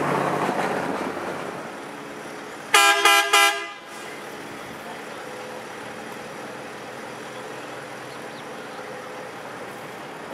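Galloping Goose #6 rail motor car's horn giving three short toots, over the car's engine running, which fades away during the first two seconds.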